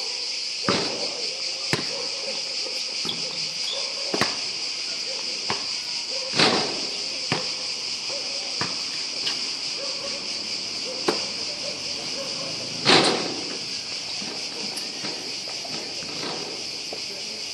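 A steady, high-pitched chorus of insects, with irregular sharp knocks of a basketball on the court. The two loudest knocks, about six and a half and thirteen seconds in, ring on briefly.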